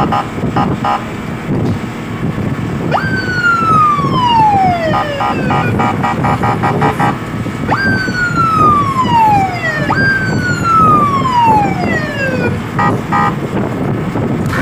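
Fire truck's electronic siren sounding three falling sweeps. Each sweep jumps up sharply, then drops steadily in pitch over about two seconds. Bursts of short, rapid beeps come near the start and near the end, over a steady rumble.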